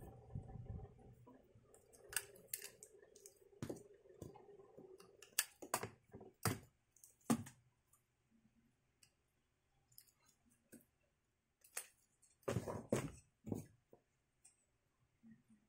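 Hard plastic hose fittings clicking and knocking as they are handled: the black connectors and filter of a cordless pressure washer's braided inlet hose. The clicks come in scattered clusters, with a faint steady hum underneath for about the first five seconds.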